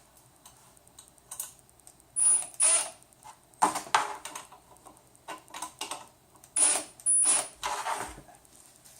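Small metal hardware clinking and scraping against an aluminium frame extrusion as a bolt and nut are fitted by hand. It comes as a handful of short, sharp clicks, the loudest in two pairs around two and seven seconds in.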